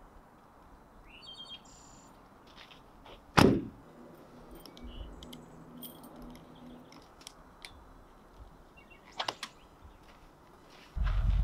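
A Jeep door shutting with one loud thunk about three seconds in, amid a few bird chirps. A couple of light clicks follow near the end as the rooftop tent's latches are worked, and a low steady rumble sets in just before the end.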